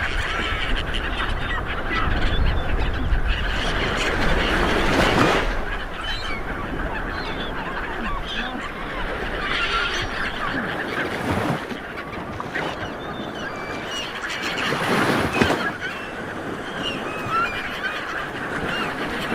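Sea water washing and swelling in surges every few seconds, with many short high chirping squeaks over the wash.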